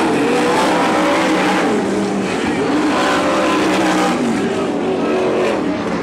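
Several wingless sprint car engines running on a dirt oval, their pitch rising and falling as the cars throttle through the turns.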